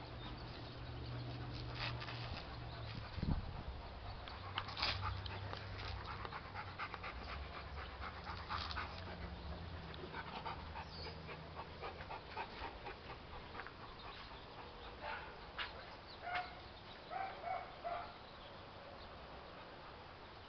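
Rottweiler breathing and snuffling close up as it noses a ball around, with a sharp knock about three seconds in. Near the end come three short, high dog cries.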